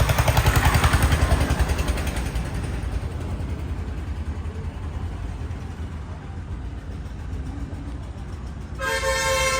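A vehicle's engine rumbles at the start and fades away over the first few seconds, as if passing. Near the end a vehicle horn sounds once, a single steady note lasting under a second.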